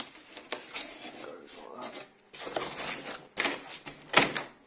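Cardboard box and bubble wrap being handled as parts are packed back in: irregular scraping and rustling, with the loudest scrape about four seconds in.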